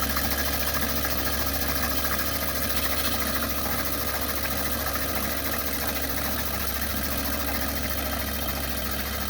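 Fuel injector test bench running a spray-pattern test on a set of SMP Intermotor replacement injectors for the Bosch 0 280 150 036: a steady, rapid mechanical buzz of the pulsing injectors and spray over a low electrical hum. It starts just before and cuts off suddenly just after.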